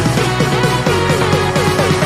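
Background electronic music with a fast, repeating pattern of short falling notes over a steady bass line.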